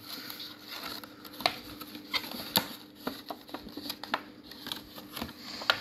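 Clear plastic clamshell packaging crackling and clicking as it is handled, with scattered sharp ticks.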